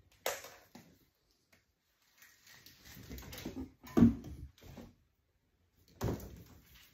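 Electrical cables being handled and pulled about at a breaker panel: rustling and scraping, with a sharp click just after the start, a louder knock about four seconds in and another clatter near the end.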